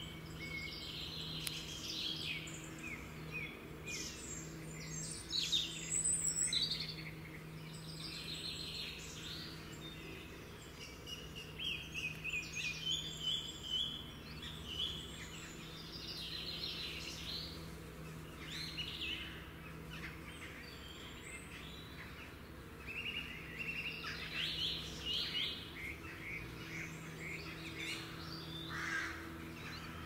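Birds chirping and singing, many short quick calls overlapping throughout, over a low steady hum.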